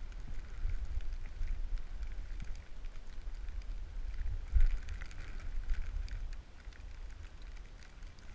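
Wind buffeting a skier's action-camera microphone during a run through powder, with the hiss of skis sliding through snow. There is a sharp bump about four and a half seconds in, and the rumble eases a little near the end.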